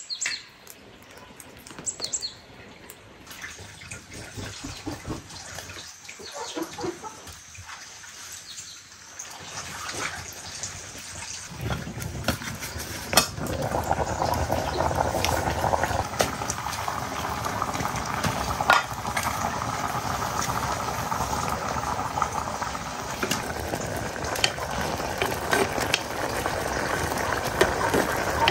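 Pot of rice boiling hard over a wood fire: a dense bubbling hiss that comes in about twelve seconds in and holds steady, with a few sharp clicks. A few faint bird chirps come at the start.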